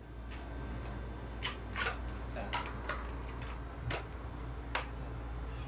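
Hard plastic tool case and its bagged contents being handled: scattered short clicks and crinkling rustles, about seven of them, over a steady low hum.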